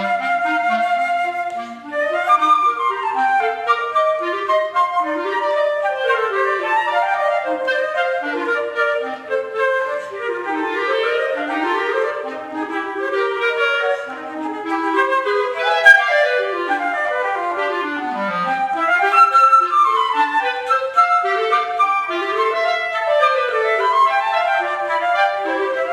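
Flute and B-flat clarinet playing a lively duet of fast runs, the notes sweeping up and down and crossing between the two instruments. A single sharp click sounds about two-thirds of the way through.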